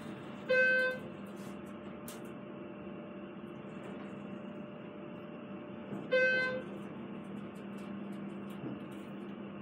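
Schindler elevator car travelling down with a steady hum. Its electronic floor tone sounds two short beeps, one about half a second in and another about six seconds in, as the car passes floors.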